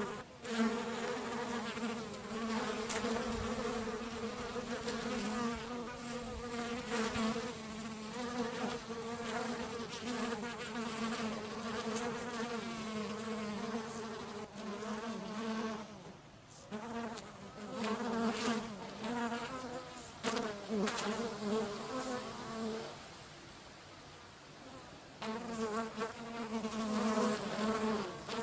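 Bees buzzing in flight at close range, a steady wing hum that wavers slightly in pitch. It thins out briefly about halfway through and again for a couple of seconds near the end.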